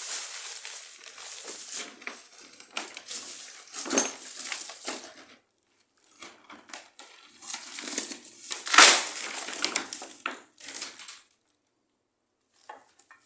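Dry debris crunching and crackling in irregular bursts, with a sharper knock about four seconds in and the loudest crunch near nine seconds; it stops a couple of seconds before the end.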